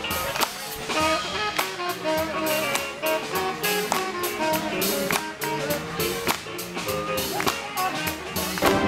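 A live band playing a tune: saxophone, guitar, electric keyboard and drum kit, with the drums keeping a steady beat.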